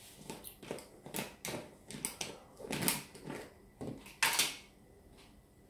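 A glass jar and its lid being handled on a kitchen counter: a string of short, irregular clicks and knocks, the loudest about four seconds in, then quiet.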